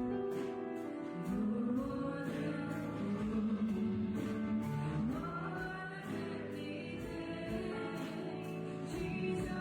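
Worship song: voices singing long, sliding notes over a strummed guitar keeping a steady beat.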